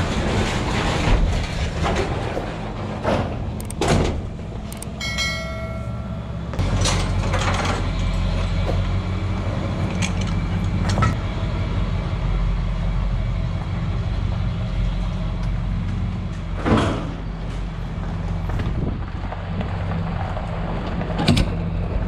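Pickup truck engine running steadily at low speed while hitched to a grain weigh wagon, with scattered knocks and rattles from the wagon and hitch and a brief high whine about five seconds in.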